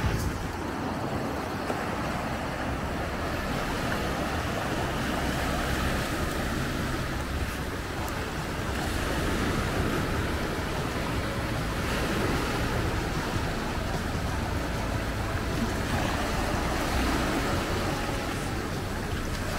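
Small sea waves washing in and breaking on a sandy shore, a steady surf.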